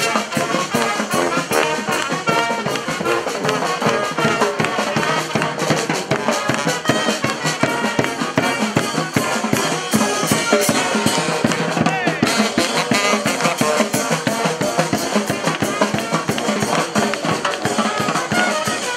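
Marching street band of brass and drums playing, with horns over a steady, busy drum beat.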